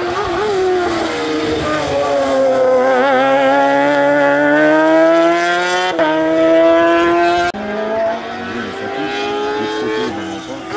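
Hillclimb race car engine accelerating hard out of a bend, its note climbing steadily as it pulls away. About seven and a half seconds in, the sound breaks off abruptly and another race car's engine takes over, quieter and further off.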